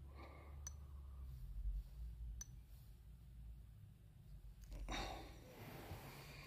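Quiet room with a low hum and a few faint, scattered clicks, then a person breathing out audibly about five seconds in.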